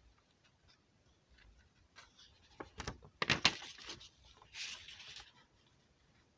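Paper page of a picture book being turned by hand: a few sharp crackles of handling about three seconds in, then a brief paper rustle a second or so later.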